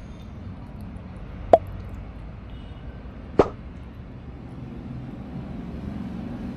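Two short, sharp pop sound effects about two seconds apart, over a steady low ambient rumble.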